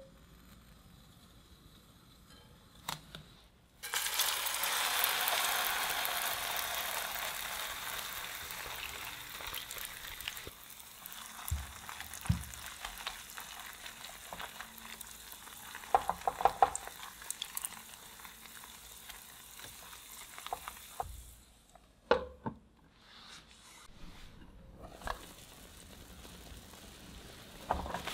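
Broccoli, carrot and egg batter hitting hot oil in a nonstick frying pan: a sudden loud sizzle about four seconds in that gradually settles to a quieter steady sizzle. Through the frying come a few light taps and scrapes of a silicone spatula against the pan.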